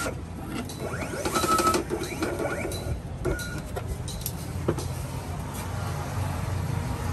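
Vinyl cutting plotter running: its motors whine in short rising and falling glides as the cutting head and vinyl move, with clicks and knocks in between, busiest about a second and a half in.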